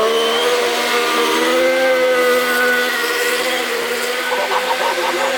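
Car engine held at high revs in a steady, slightly wavering note while the car slides tail-out in a drift.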